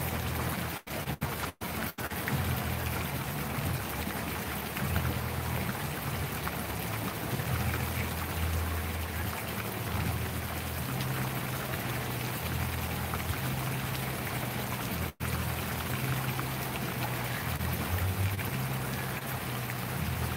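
Steady hiss of splashing water, with the low bass notes of background music underneath. The sound cuts out briefly three times about a second or two in, and once more about three quarters of the way through.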